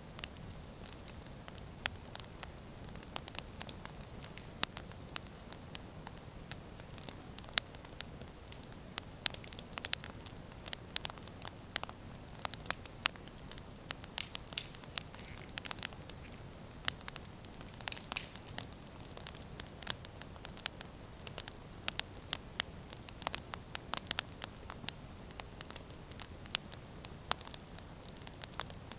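Campfire burning, the wood crackling with irregular sharp pops over a steady low rumble.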